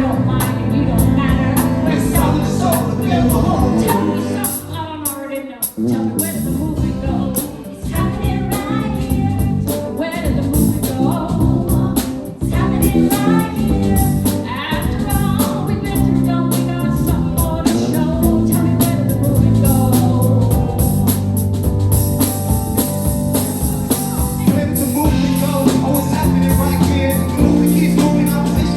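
A live band playing a song with singing, with a brief lull about five seconds in.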